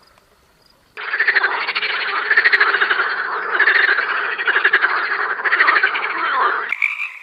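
Frogs croaking in a dense, rapidly pulsing chorus that starts about a second in. Near the end it cuts abruptly to a different, higher-pitched croaking.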